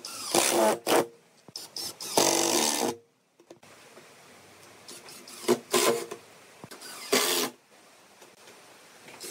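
Cordless drill driving screws into wood in short runs of about half a second to a second, with pauses between.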